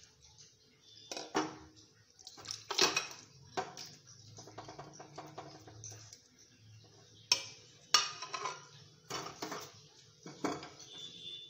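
A metal spoon clinking and scraping against a cooking pot and a serving dish as curry is dished out: a string of irregular sharp knocks, a few of them louder.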